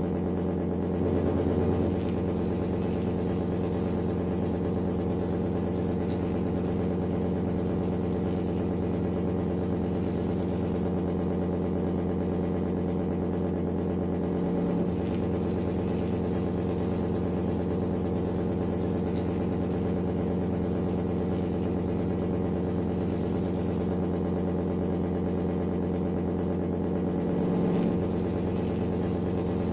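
A steady, low engine idle with small swells about every 13 seconds.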